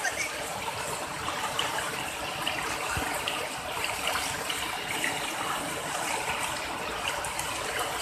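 Shallow stream rapids: water rushing and splashing over rocks close by, a steady churning rush.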